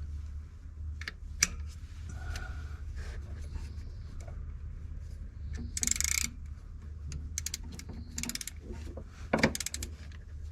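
Hand work on a car: scattered clicks and knocks of tools and parts being handled, a short loud hiss about six seconds in, and quick runs of small ticks near the end, over a steady low hum.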